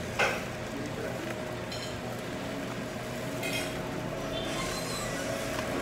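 A sharp clink of tableware at a meal, followed by a couple of fainter ringing clinks, over a steady background hum.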